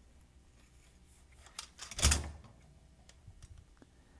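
Handling noise from a Fabarm XLR5 semi-automatic shotgun being taken down: a few light clicks and one sharp knock about two seconds in, as the gun rests in a cleaning cradle and its barrel is slid off the magazine tube.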